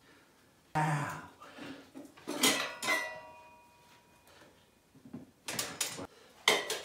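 Metal tire-changing tools clanking against a dirt bike wheel rim and the Rabaconda tire-changer stand as a tire is worked off the rim: a few sharp metal clanks, one about two and a half seconds in ringing on briefly, and a quick cluster of clanks near the end.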